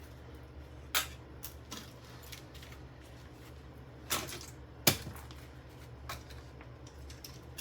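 Hammer blows smashing small metal and plastic microwave parts on a carpeted floor: three sharp strikes, about a second in and twice more close together past the middle, with light clicks and rattles of loose pieces between them.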